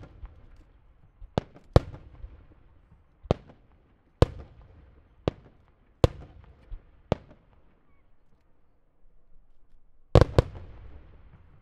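Aerial firework shells bursting overhead in a star mine: a run of sharp bangs, about one a second, each followed by a brief rumble. After a short lull, a louder double boom comes about ten seconds in.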